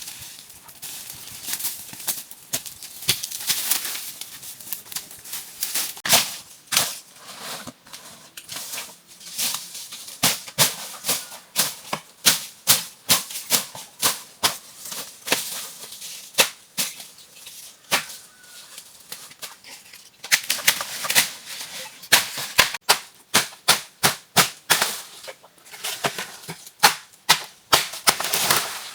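A long, irregular run of sharp knocks and clicks, about one to three a second, with stretches of rustling, scraping noise between them.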